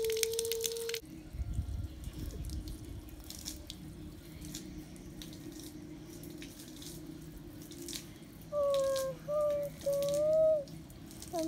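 Rainwater dripping into shallow puddles on concrete, with scattered drip ticks over a faint steady low hum. A short pitched call sounds once at the start, then three times in quick succession near the end.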